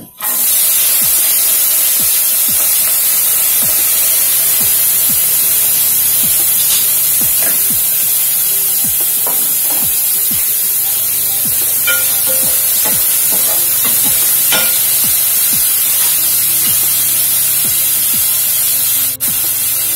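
Chopped onions and green chillies sizzling steadily in hot oil in a steel pot, with a wooden spoon knocking against the pot now and then as they are stirred.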